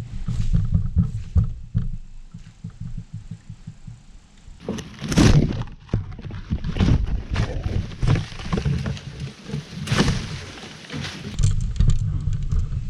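Wind rumbling on the microphone in a kayak, with two louder rushes about five and ten seconds in.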